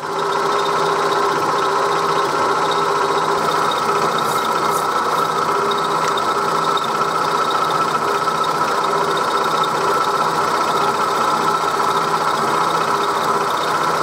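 A 1938 Bridgeport M-head milling machine takes a steady cut, its end mill fed into the metal block so that the bottom of the cutter does the cutting. It is a steady, even machining hum with no break.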